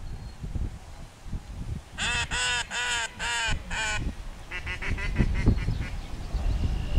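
Duck call blown by hand in five loud quacks, followed by a quicker run of fainter notes: in a retriever hunt test, the call that signals the throwers to put up a mark.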